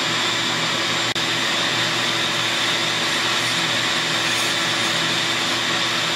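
Shop vacuum running steadily while a handheld rotary tool grinds bevels on the upper transfer ports of a chainsaw cylinder with a diamond ball burr. The sound breaks off for an instant about a second in.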